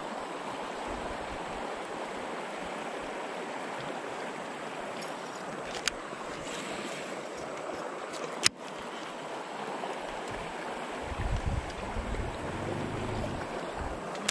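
Steady outdoor wash of wind and moving water on an open boat, with two sharp clicks partway through. Low wind buffeting on the microphone comes in near the end.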